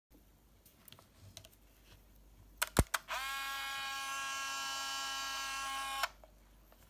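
A few plastic clicks, then the Olympus Trip AF 51 compact camera's built-in motor whirring at a steady pitch for about three seconds before it cuts off.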